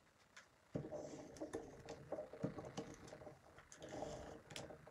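Stampin' Seal tape runner rolling adhesive onto the back of a cardstock panel: a scratchy, clicking whir in several strokes, starting about a second in.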